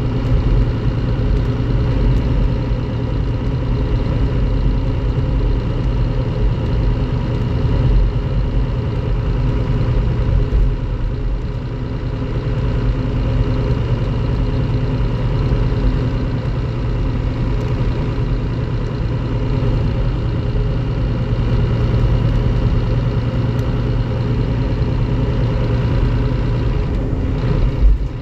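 Scania K360IB bus's DC13 straight-six diesel engine running steadily at an unchanging pitch. A short knock sounds near the end.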